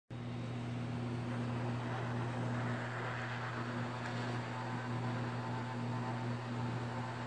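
Hot-air rework station blowing over a circuit board to reflow solder paste under an LED: a steady airflow hiss with a low, even hum.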